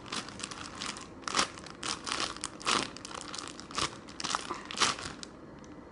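Irregular crinkling and rustling as a squishy toy, a replica Hello Kitty donut, is handled, dying away shortly before the end.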